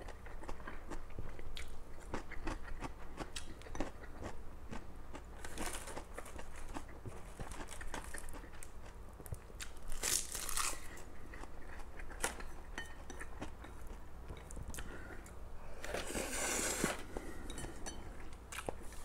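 Close-miked chewing and wet mouth clicks of a person eating stir-fried mi goreng noodles, with a few louder noisy bites about a third of the way in, around halfway and near the end.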